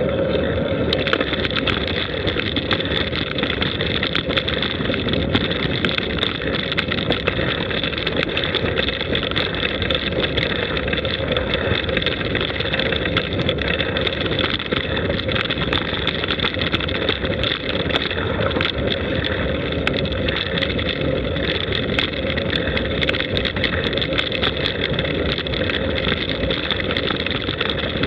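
Steady rushing wind and rolling road noise from a camera moving along a paved lane, with frequent small clicks and rattles throughout.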